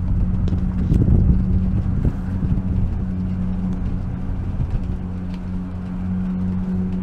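Gondola cabin riding along its cable: a steady low mechanical hum and rumble, with a couple of faint knocks.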